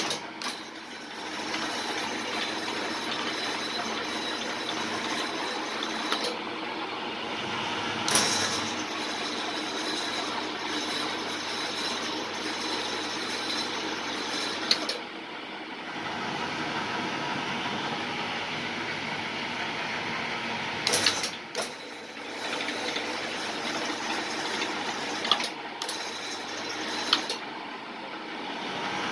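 Deep-well drilling machine running: a steady mechanical clatter with a few sharp knocks, dropping away briefly three times.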